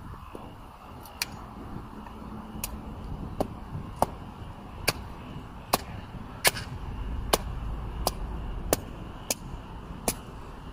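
Small hatchet chopping and splitting a length of firewood held upright, about a dozen sharp cracks at a steady pace of one every second or less.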